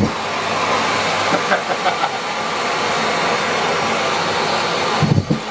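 Miele Complete C3 canister vacuum running on high power with a steady rushing suction noise as it sucks up socks. A few light rattles come a couple of seconds in, and near the end the rush briefly dips into a low flutter.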